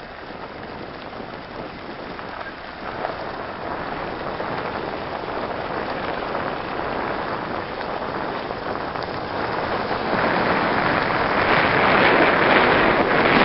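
Road noise from a moving car: a steady rushing hiss of tyres and wind that grows louder as the car picks up speed, then drops off suddenly right at the end.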